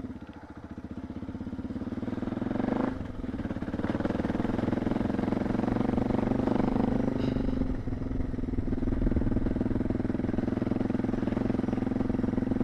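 Suzuki DR650's single-cylinder four-stroke engine running under way, getting louder over the first few seconds, with brief dips about three and eight seconds in.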